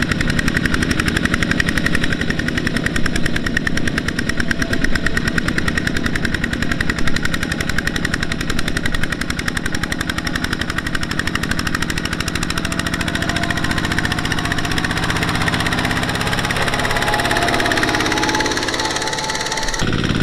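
Kubota walking tractor's single-cylinder diesel engine chugging hard in rapid, even beats while it drags a trailer loaded with rice sacks through deep field mud, stuck and straining under the load.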